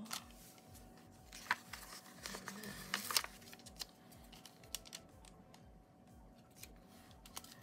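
Paper planner stickers being handled and moved about on a planner page: soft rustles and light taps of paper, with sharper crinkles about one and a half and three seconds in.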